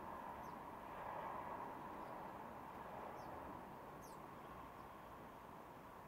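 A few brief, high house sparrow chirps, faint and scattered, over a steady background hiss.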